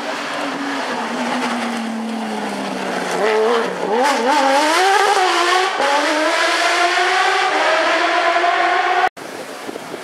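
Porsche 911 rally car's flat-six engine coming off the throttle, its pitch falling as it slows for the corner, with a few quick throttle changes about three seconds in. It then accelerates hard, the pitch climbing steadily through one long pull, and the sound cuts off abruptly near the end.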